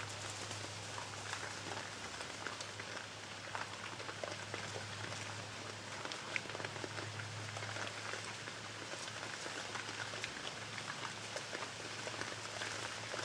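A herd of feral hogs feeding at a feeder: a dense, rain-like patter of small crunches and crackles from chewing and hooves in dry leaves, over a low steady hum.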